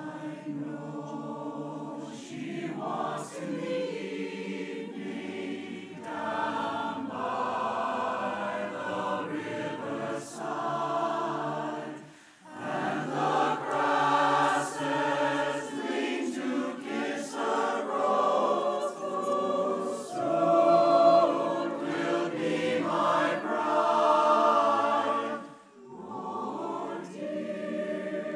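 Mixed choir of men and women singing in harmony, with a brief break between phrases about twelve seconds in and another near the end.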